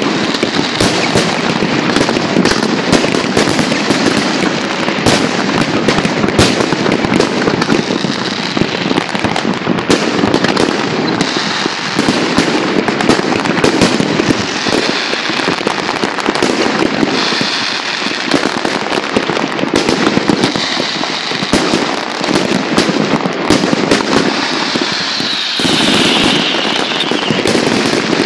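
A dense fireworks barrage: continuous rapid bangs and crackling from many shells bursting at once. Near the end a whistle falls in pitch.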